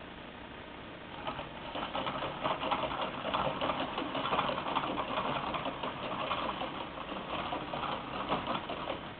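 Hand-cranked Alef Norcin 35mm projector from around 1930, its Maltese cross mechanism clattering rapidly as it is turned. The clatter starts about a second in and stops near the end.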